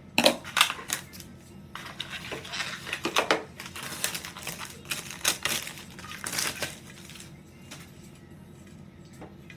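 Hard acrylic pieces of a makeup organizer case clacking and knocking together as they are handled, with scraping and rustling between the knocks. It is busiest for the first seven seconds or so, then quietens to a few light taps.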